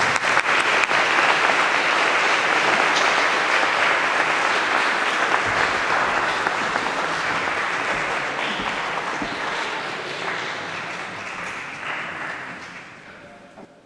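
Audience applauding, steady at first, then dying away over the last few seconds.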